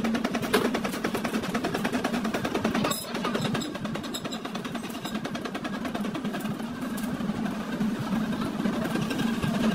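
Lathe turning a mandrel as steel wire is wound onto it into a coil spring, a steady mechanical running noise.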